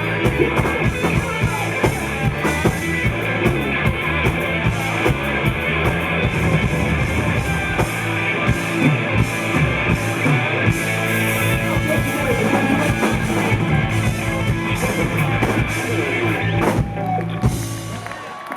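Live rock band with electric guitar and drum kit playing a song out. About 17 seconds in the music breaks off into a final chord that rings and fades.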